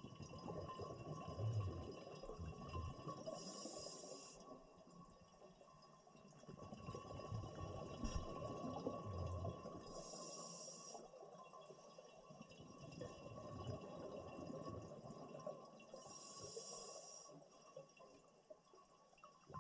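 Scuba diver breathing through a regulator underwater: three hissing inhalations about six seconds apart, each followed by a long gurgle of exhaled bubbles.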